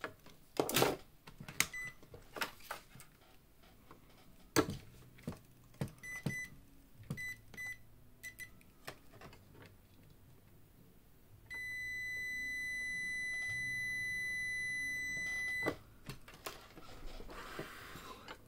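An electronic beeper sounds several short high beeps, then one steady beep lasting about four seconds and cutting off suddenly, among scattered clicks and knocks of handling.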